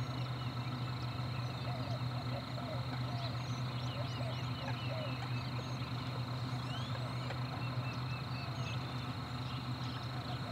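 A flock of coots calling: many short, overlapping clucks and squeaks. Under them runs a steady low hum and a thin, steady high tone.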